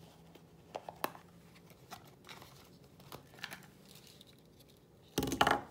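Faint scattered clicks and rustles of a hand holding and shifting a small handheld soldering iron, with a louder half-second burst of noise about five seconds in.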